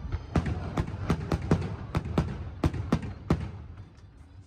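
A quick, irregular series of sharp bangs, about a dozen in four seconds, over a low rumble, thinning out toward the end.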